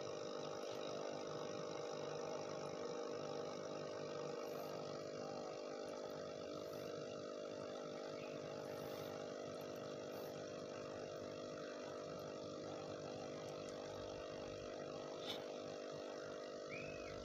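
Aquarium air pump humming steadily, with the air stream bubbling in the tank, and a faint click near the end.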